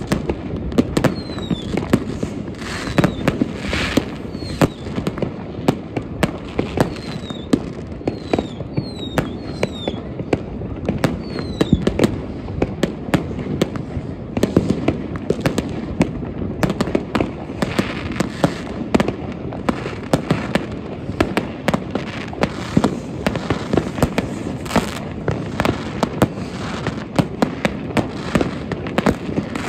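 New Year's Eve fireworks going off in great numbers: a dense, unbroken stream of bangs and pops from rockets, batteries and firecrackers. Several short falling whistles come through in the first dozen seconds.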